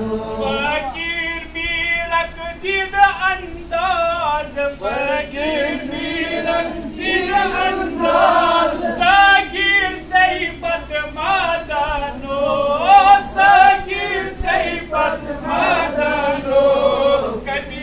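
A man chanting a Sufi devotional poem (kalam) in a melodic voice, in phrases that rise and fall with short breaths between them.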